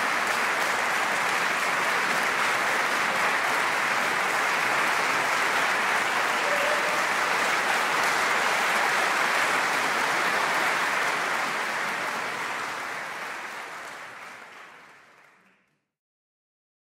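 Concert audience applauding steadily, the applause fading out over the last few seconds into silence.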